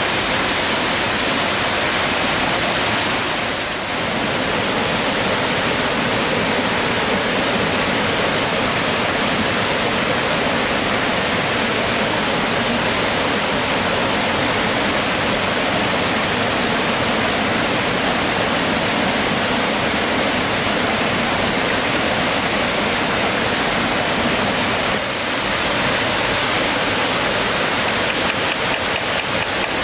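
Small waterfall and stream cascading over rocks, a steady rush of water.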